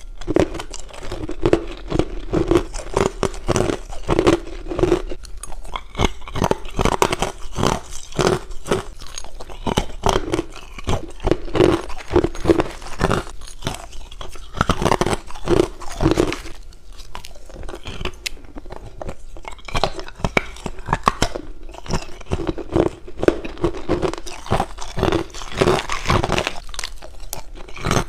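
Crushed ice being bitten and chewed close to the mouth: a dense, steady stream of crisp crunches that thins out for a few seconds past the middle.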